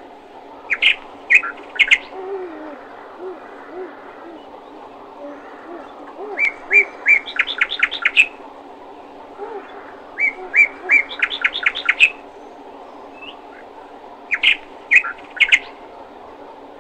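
Songbird chirping in short bursts of quick, sharp repeated notes, four phrases a few seconds apart, over a steady low background hum.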